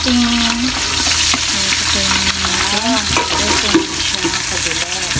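Dried salted galunggong (scad) frying in hot oil in a nonstick pan: a loud, steady sizzle full of crackles and pops. The fish went into the pan straight from the freezer with ice still on it, so the oil spatters.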